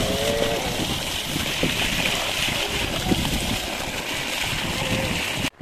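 Water gushing steadily from the open end of a field irrigation pipe and splashing onto mud and hands. The sound cuts off abruptly near the end.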